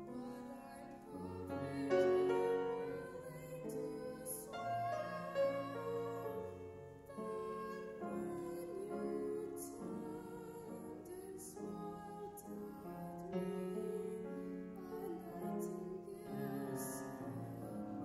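A woman's solo voice singing, accompanied by a grand piano, holding long wavering notes.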